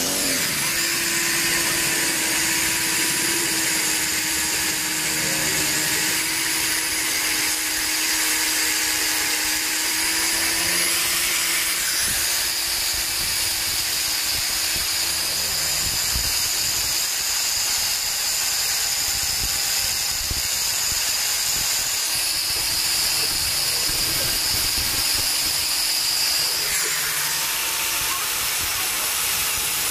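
Electric angle grinder running steadily with its disc grinding down the shank of a bolt held in a vise: a continuous high whine over a dense grinding hiss. Its pitch shifts slightly twice, about twelve seconds in and near the end.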